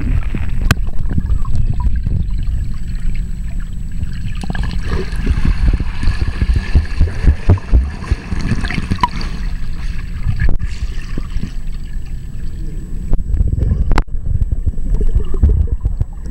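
Muffled underwater churning and bubbling from a swimmer's kicks and strokes, heard from below the surface of a pool; it swells to its loudest a little past halfway as the swimmer passes close.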